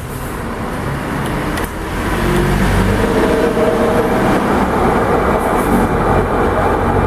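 Consul Floral 7 kg washing machine running in its spin cycle, getting louder about two seconds in as the drum picks up speed. The noise comes from worn drum bearings, damaged by a water leak.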